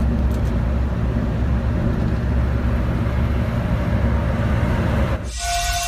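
Volvo B11R coach's diesel engine running steadily at highway speed, with tyre and road noise, heard from inside the driver's cab. About five seconds in the road noise cuts off abruptly and music begins.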